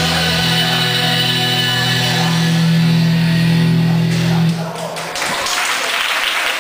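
Rock music with guitar, ending on a long held chord that stops about four and a half seconds in; after it comes audience applause and chatter.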